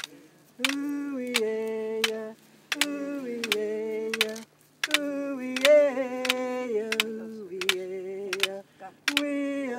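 A voice singing a chanted song in phrases of about two seconds with short breaks, each phrase of held notes that step down in pitch. Sharp percussive strikes keep a beat about every three-quarters of a second.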